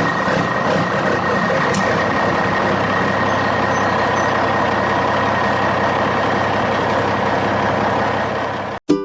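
A vehicle engine running steadily with a few constant tones in its noise, cutting off abruptly near the end.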